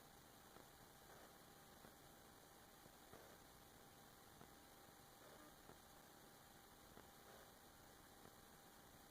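Near silence: a faint steady hiss and hum, with a few faint ticks.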